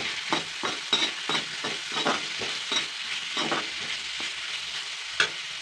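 Sliced onions, ginger and curry leaves sizzling in hot oil in a pan while a utensil stirs them, scraping and knocking against the pan about two or three times a second. One sharper tap about five seconds in.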